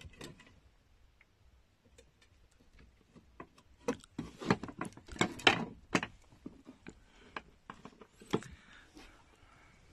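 Loose wooden floor slats in a small boat's hull being handled, knocking together. There are a few faint clicks at first, then a quick run of sharp knocks a few seconds in and one more knock near the end.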